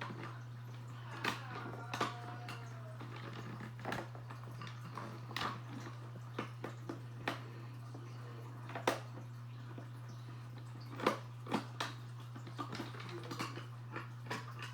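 Screwdriver turning a small screw out of a plastic toy's battery cover: irregular small clicks and scrapes of metal on screw and plastic, over a steady low hum.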